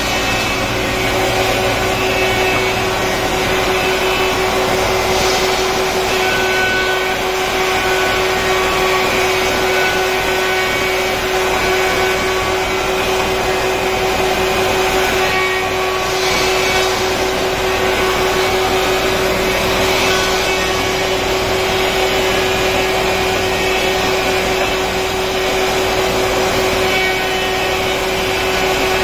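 Four-sided planer (moulder) running steadily, a loud machine hum with a constant tone held throughout.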